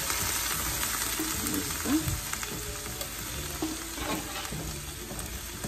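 Beans sizzling as they fry in hot lard with onion and chile de árbol in a skillet. More beans are being poured in from a clay pot while a spoon stirs and scrapes the pan.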